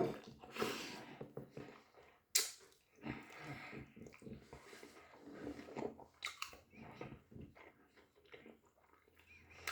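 A person chewing a doner kebab: soft, irregular mouth smacks and small clicks, with one sharp click about two and a half seconds in.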